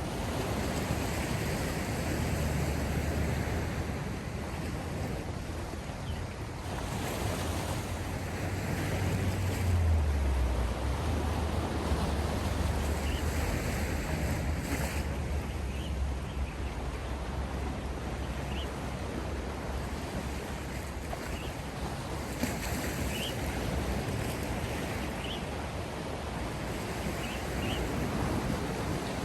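Sea surf: waves breaking and washing ashore, a steady rush that swells and eases, with a low rumble of wind on the microphone.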